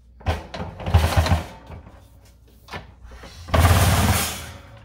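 Ninja Foodi digital air fry oven being set down on a kitchen countertop with a few heavy thumps, then pushed into place, its feet scraping along the counter for about a second near the end.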